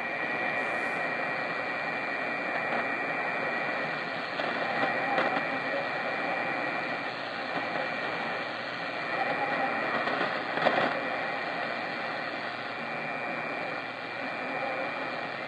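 Shortwave receiver hiss and static from a weak, noisy signal, with a steady high whistle running through it and a few brief crackles, the largest about two-thirds of the way in.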